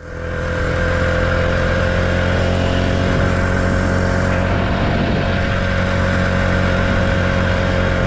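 Small motorized-bicycle kit engine running steadily at cruising speed, holding an even pitch, with wind and road rush over it.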